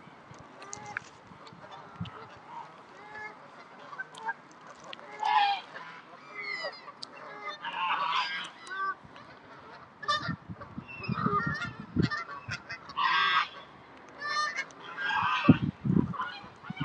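Geese honking repeatedly, several calls overlapping.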